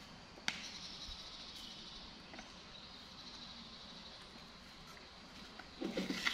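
Faint high-pitched squeaking from a baby monkey, with a sharp click about half a second in and a few handling knocks near the end.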